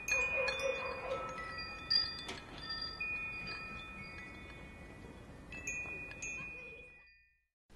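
Wind chimes ringing: irregular strikes of several high tones that linger, growing fainter and fading out about seven seconds in.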